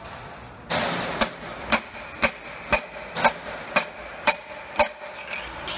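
A bearing-driver tool is banged repeatedly to drive the front bearing onto the input shaft of an Eaton Fuller heavy-duty manual transmission. About nine sharp knocks come at an even two a second, starting about a second in, each with a slight ring.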